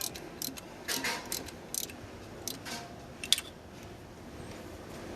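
A run of sharp, irregular metallic clicks and clinks, typical of hand tools and engine parts being handled during a repair. The loudest comes a little over three seconds in, and the clicking stops soon after.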